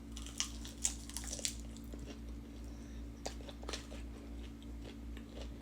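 A person biting and chewing food, probably a shrimp and fries meal, with scattered small crunches that cluster in the first two seconds and again about three and a half seconds in.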